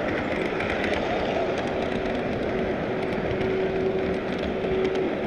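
Model train running along a layout, heard from a car riding in the train: a steady rumble of wheels on the rails with a steady motor hum.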